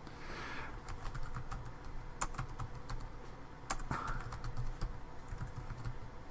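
Computer keyboard typing: irregular key clicks as a command is typed, with a couple of brief soft rustles near the start and about four seconds in.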